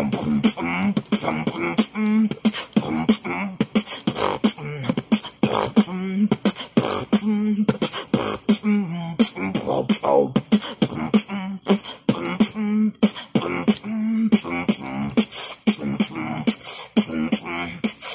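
Vocal beatboxing: a fast, steady run of mouth-made percussive clicks and snare-like hits, mixed with short hummed bass notes.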